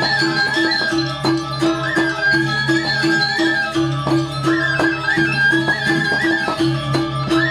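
Balinese gamelan playing barong music (tabuh barong): a short gong-like beat about four times a second, frequent struck metal strokes and a high wavering melody over a low held tone.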